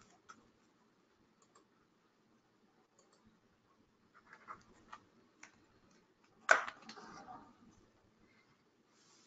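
Scattered small clicks and taps, like handling at a computer desk, with one sharp, loud knock about six and a half seconds in followed by a brief rustle.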